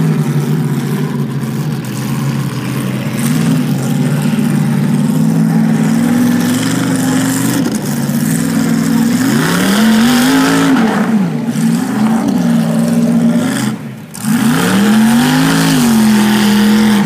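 Mud bog buggy's engine running hard under load through the mud, its pitch swinging with the throttle. The revs sweep up and back down about nine seconds in, drop briefly near fourteen seconds, then climb and fall again.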